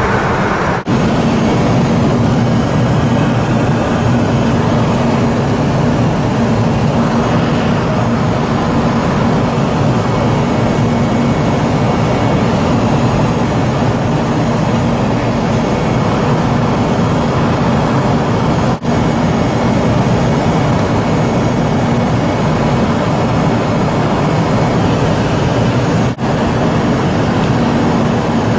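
Cessna Citation 501 cabin noise in flight: a steady drone of its twin turbofan engines and rushing air, with a low hum running through it. The sound drops out very briefly three times.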